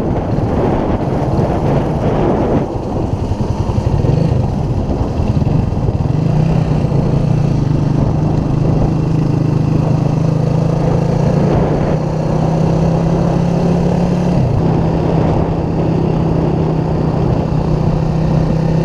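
Motorcycle engine running steadily while riding at road speed, with wind rushing over the microphone in the first few seconds. The engine note dips briefly once about two-thirds of the way through.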